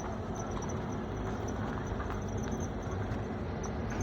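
A steady rushing noise with a low rumble, and insects chirping in a quick, high, repeated pulse over it.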